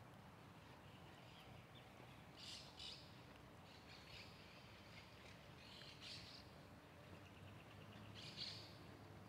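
Faint bird calls: a few short high chirps spread through, the loudest near the end, over a quiet low background hum.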